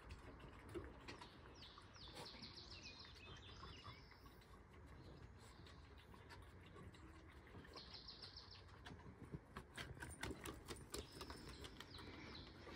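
Faint birdsong: small birds chirping in short, quickly repeated phrases a few times over a quiet outdoor background. Light clicks and taps come in the last few seconds.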